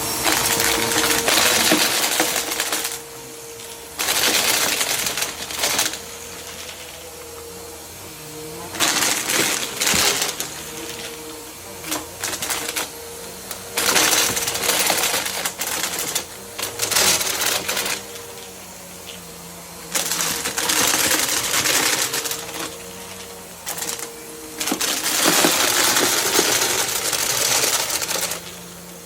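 Bissell vacuum cleaner running with a steady motor hum while sucking up Lego bricks. The hard plastic pieces clatter and rattle through the nozzle in loud bursts of a few seconds each, about six times, with only the motor between them.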